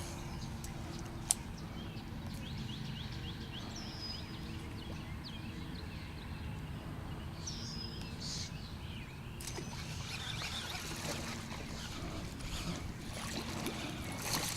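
Outdoor ambience at a pond: a steady low background rumble, a sharp click about a second in, and a few short high chirps around four and seven seconds in. Busier rustling noise fills the last few seconds.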